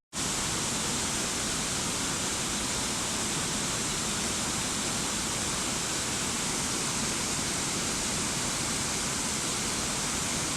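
Steady, unchanging rush of falling water, starting abruptly at a cut.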